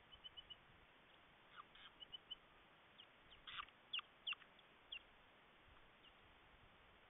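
A small bird calling softly: a quick run of four high peeps, then three more, then a handful of sharp down-slurred notes about three to five seconds in.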